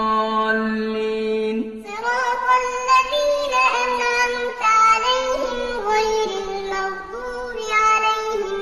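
A singing voice holds one long steady note, then, about two seconds in, moves into a melodic line of short notes stepping up and down in pitch.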